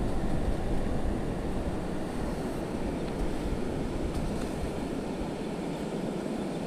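Steady wash of ocean surf mixed with wind on the microphone.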